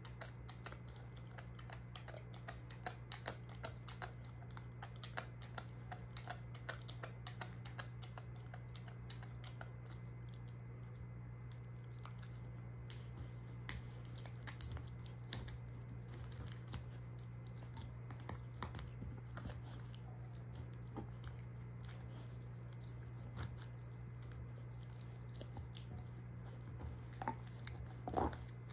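German shorthaired pointer gnawing a beef soup bone: irregular clicks and crunches of teeth on bone. They are busiest in the first few seconds, thinner in the middle and loudest in a short burst near the end, over a steady low hum.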